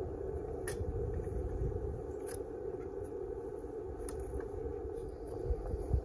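Compact tractor engine idling steadily, with a couple of dull thumps near the end.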